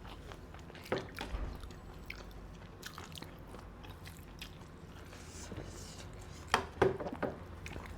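Close-up eating sounds from a seafood boil: quiet chewing and biting, with a few sharp clicks about a second in and a louder cluster of them near the end.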